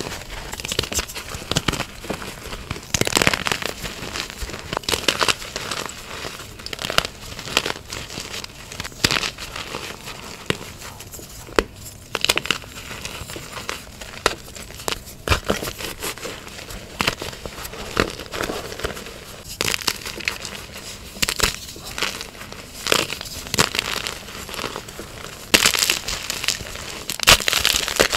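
Blocks of dyed gym chalk being crumbled and crushed: a dense, irregular run of crunches and crackles, with louder clusters of snaps now and then.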